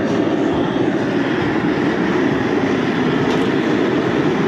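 Propane jet burner running at full flame under a crawfish boil pot: a steady, loud rushing noise.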